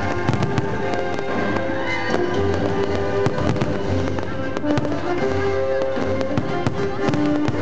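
Fireworks shells bursting and crackling in quick succession, over music with long held notes.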